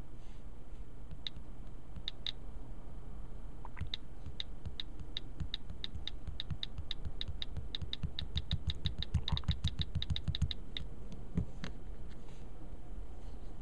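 A run of quick, light clicks, about three to four a second for several seconds, with low thumps under them near the end of the run, over a steady low hum.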